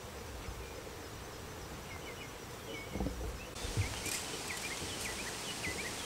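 Outdoor yard ambience with small birds chirping in short, high, quick notes, more of them in the second half, and a couple of soft low thumps about halfway through.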